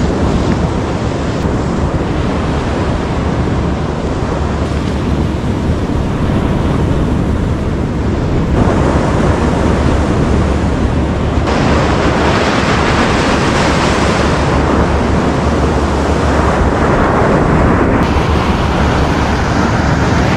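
Loud, steady wind noise buffeting the microphone over ocean surf breaking on the beach, shifting abruptly in strength a few times.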